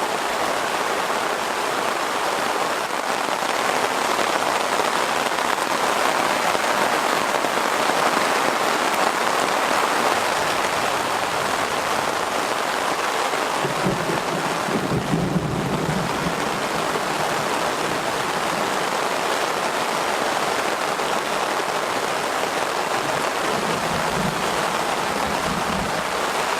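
Heavy rain falling steadily in a thunderstorm, with low rumbles of thunder about halfway through and again near the end.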